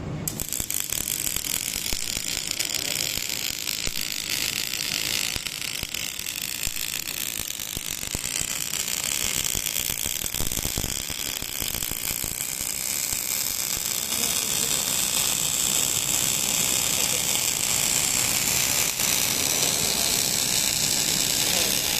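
Robotic arc welding: the welding arc strikes at once and then crackles steadily, a dense stream of fine sizzling clicks.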